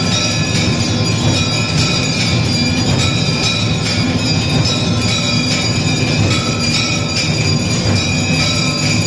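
Temple bells and gongs ringing continuously in a loud, steady metallic din over a low rumble, the clangour of an aarti.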